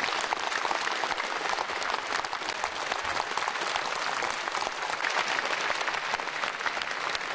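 Large concert audience applauding: dense, steady clapping from many hands.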